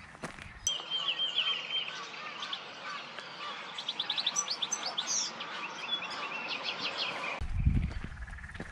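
Small birds singing: a repeated high chirping phrase, then a quick run of sharp high notes around the middle. Near the end the birdsong cuts off and a low rumble takes over.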